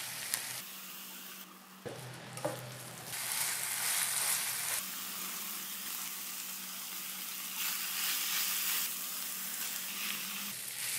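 Fried rice ingredients sizzling in a frying pan on a hot plate, with a spatula stirring and a few sharp clicks of the utensil about two seconds in. The sizzle steps up and down in loudness every few seconds.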